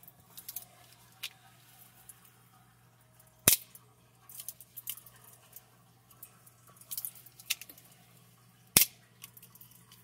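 Italian-style stiletto switchblade (a Rizzutto Estiletto Milano clone) fired open twice, each time a single sharp metallic snap as the blade flies out and locks, about five seconds apart. Between the snaps come softer clicks as the blade is folded back by hand into the handle.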